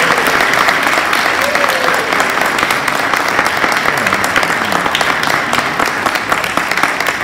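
Audience applauding: a dense spread of many claps blended together, easing off slightly toward the end.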